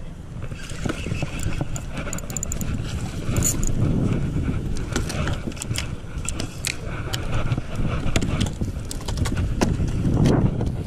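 Wind buffeting an action camera's microphone, with clothing rustle and many short clicks and knocks as a spinning reel is cranked in and a small fish is brought up onto a wooden pier.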